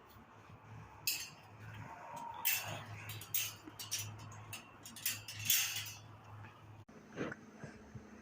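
A string of irregular clicks, clinks and rattles over a low steady hum.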